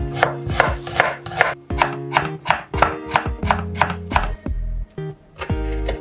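A chef's knife chopping onion and then tomato on a wooden cutting board: a fast run of sharp knocks, about five a second. It pauses briefly about four and a half seconds in, then a few more cuts come near the end.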